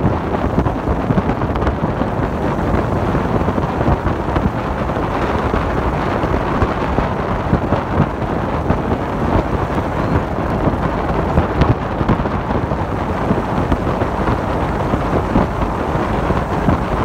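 1907 Itala car driving at speed: a steady, loud rumble from the car with wind buffeting the microphone.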